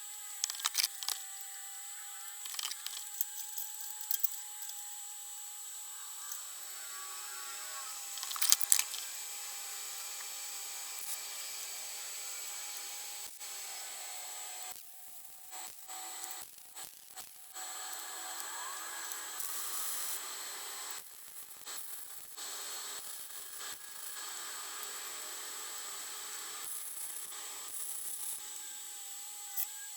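A handheld power tool working on metal, running in spurts: a steady, slightly wavering whine that stops and starts again several times, with sharp metal knocks in between, the loudest about a third of the way in.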